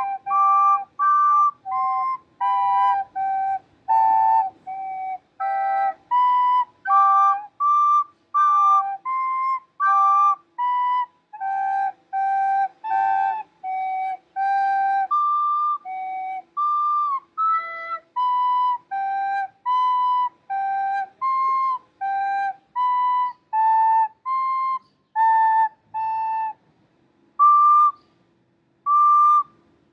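Two recorders playing a tune together in two parts, in short separate notes of about half a second each. Near the end the notes thin out, with pauses between them.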